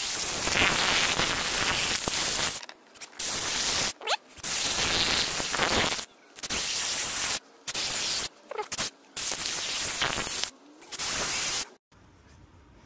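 Cordless drill with a 6mm masonry bit drilling fixing holes into a brick wall, in a series of about eight short bursts with brief pauses between them, stopping a little before the end.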